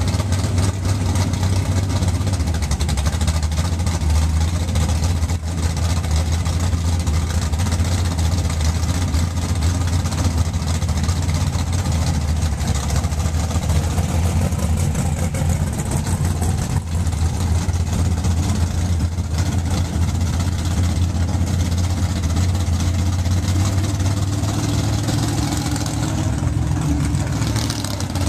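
Willys coupe drag car's engine idling as it creeps along, a steady low rumble with no break.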